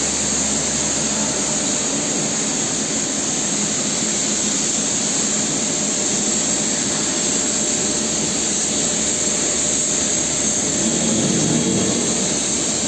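A machine running steadily and loudly, a constant hiss-like drone with no breaks or changes.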